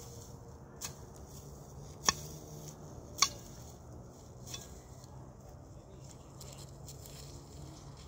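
A hand hoe chopping into dry, stony ground in about four sharp strikes; the second and third are the loudest. A steady low hum runs underneath.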